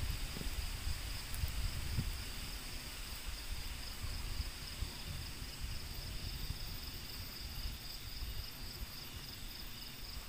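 Steady high-pitched drone of insects, with wind rumbling and buffeting on the microphone underneath.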